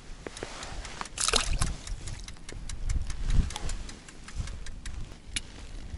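Close handling noise from the angler's own movements: rustling and scattered sharp clicks and knocks, with a short hissing burst about a second in and a low rumble around the middle.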